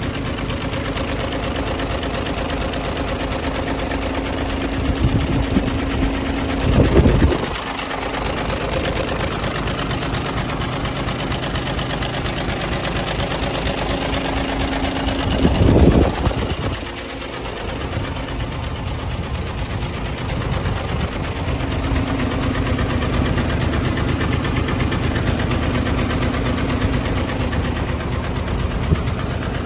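Isuzu Giga truck's diesel engine idling steadily with a clattering knock, briefly growing louder twice.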